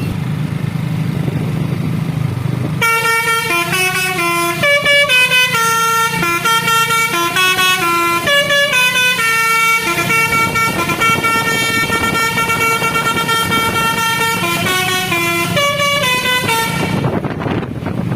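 A tour bus's telolet basuri horn, a set of electric horn trumpets, plays a long melody of quick stepping notes and held tones, starting about three seconds in over the low rumble of the bus's engine.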